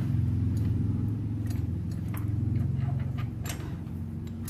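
A few light, irregular metal clicks and clinks from a socket on an extension bar working a motorcycle frame slider's mounting bolt, over a steady low hum.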